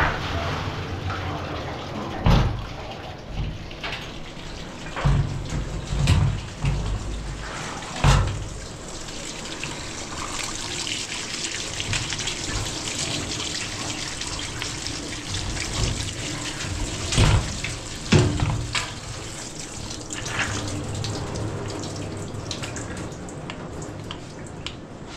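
Water running steadily, with several sharp knocks and clatters now and then.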